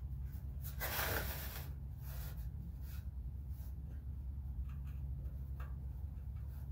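Faint rubbing and handling sounds as sealant is squeezed from a tube and smeared onto an exhaust flange, over a steady low hum. A short rustling hiss comes about a second in.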